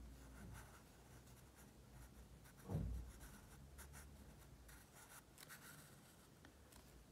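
Faint scratching of a drawing tip on paper in short strokes, outlining around cut-out shapes on a journal page, with one soft low bump about three seconds in.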